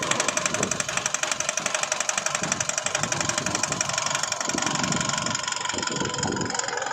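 Isuzu Alterra's 3.0-litre 4JJ1 four-cylinder diesel running just after a hard start, with a rhythmic fuel knock that is strong at first and evens out after about four seconds. The knock and hard starting go with a fault the scan puts down to a lost 5-volt sensor reference and no camshaft sensor signal, traced to a harness wire shorting to ground.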